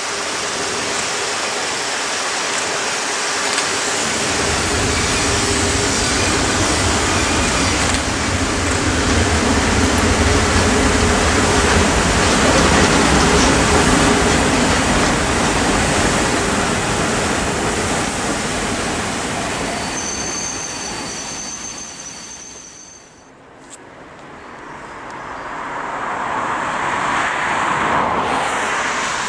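A heavy train passing at speed, a Re 4/4 electric locomotive leading two C 5/6 steam locomotives and a rake of coaches: a loud, steady rumble of wheels on rail that builds and then fades, with a thin squeal late in the pass. After a sudden break, a second rumble swells and dies away again.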